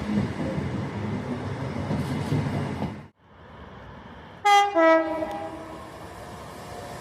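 Train rumbling past, then after a brief break a train's two-tone horn sounds about four and a half seconds in: a short higher note dropping to a lower one, about a second in all.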